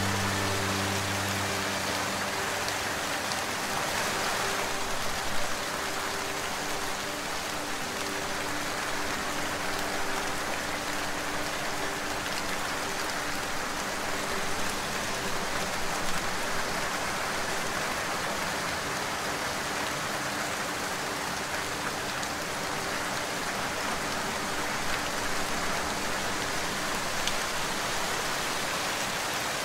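Steady, even rain falling on hard surfaces. A faint low hum fades out in the first couple of seconds.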